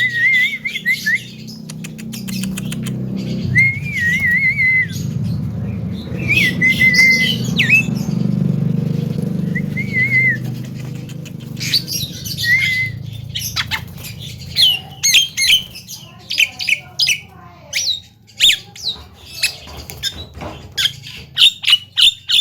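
Javan myna calling: a series of wavering whistled notes over a low steady hum, then a quick run of sharp chirps and clicks in the last several seconds.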